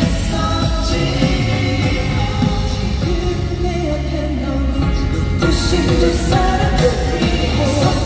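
A male vocalist sings live into a handheld microphone over a pop backing track, both amplified through a concert PA.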